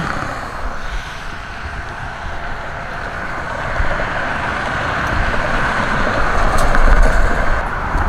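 Road traffic noise with tyre hiss, swelling as a vehicle passes and peaking about seven seconds in.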